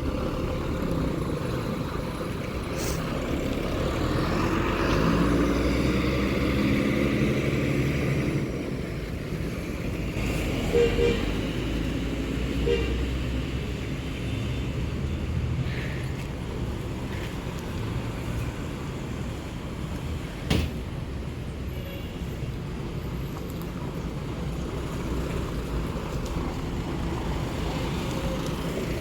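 Roadside traffic noise as a large vehicle, likely a bus, passes with its engine note swelling for a few seconds. A horn gives short toots, twice about eleven seconds in and once about thirteen seconds in. A single sharp knock comes about two-thirds of the way through.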